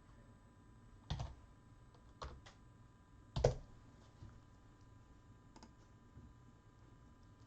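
A few scattered taps on a computer keyboard, about five separate clicks with pauses between, the loudest about three and a half seconds in.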